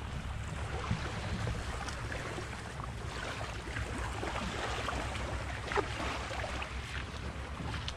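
Wind buffeting the microphone as a steady low rumble, with faint water lapping at the shore.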